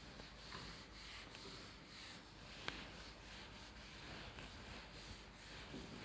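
Faint rubbing of a whiteboard being wiped clean in repeated strokes, with one sharp tick a little before halfway.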